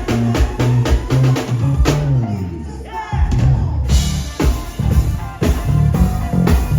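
Band music: drum kit and bass guitar playing a steady beat. About two seconds in it drops into a short break with sliding notes, then the full band, guitar included, comes back in about four seconds in.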